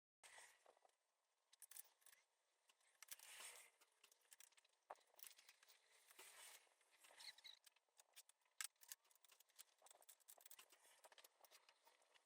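Near silence with faint, scattered small clicks and brief rustles, irregular and never steady.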